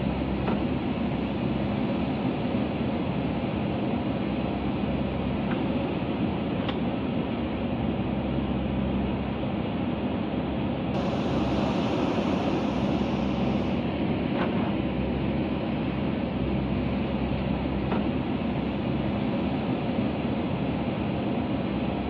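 Backhoe loader's diesel engine running steadily under load as its rear backhoe arm digs and dumps soil, with a few faint knocks.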